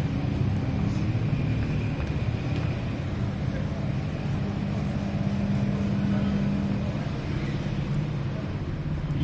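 Busy city street ambience: motor traffic running steadily, with voices of people nearby.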